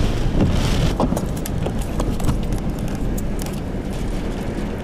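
A vehicle's steady low rumble, with scattered sharp ticks and clicks over it.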